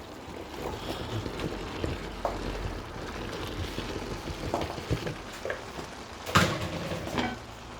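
Pot of chicken-mince and curry sauce sizzling on the heat as chopped potatoes go in, with small clicks and scrapes and one louder knock about six seconds in.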